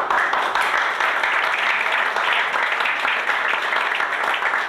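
An audience applauding, a steady patter of many hands clapping together.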